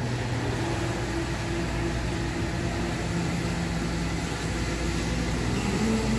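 Restaurant room noise: a steady mechanical hum of ventilation and kitchen fans, with a few constant low tones.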